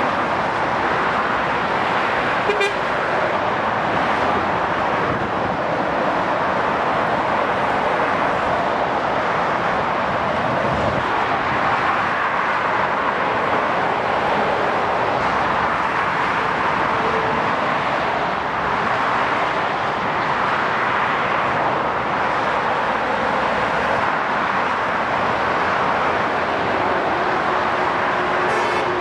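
Steady motorway traffic noise: the tyres and engines of lorries and cars passing at speed on a multi-lane motorway.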